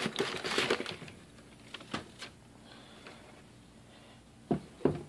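Tissue paper rustling as a pair of leather sneakers is lifted out of its box, followed by a few light clicks and two short knocks near the end.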